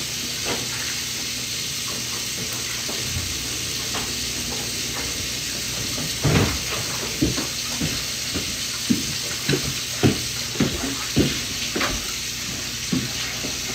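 Dishes and utensils clinking and knocking together, a quick run of knocks from about six seconds in, over a steady hiss.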